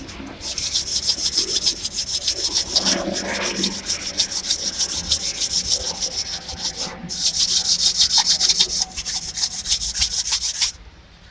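Sandpaper scrubbed rapidly back and forth over the deck face of a Maruti Suzuki Swift Dzire cylinder block, polishing off stuck head-gasket residue so the new head gasket seats flat. Fast, even strokes, with a brief pause about seven seconds in, stopping shortly before the end.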